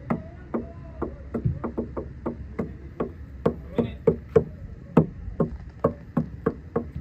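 A rapid, fairly even series of sharp knocks, about three a second.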